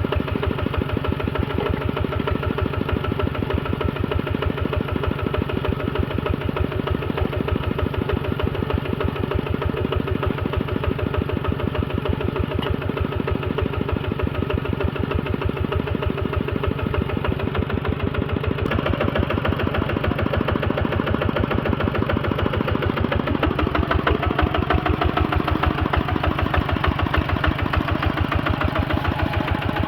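Engine running steadily with a fast, even beat. A little over halfway through it picks up, becoming somewhat louder and harsher.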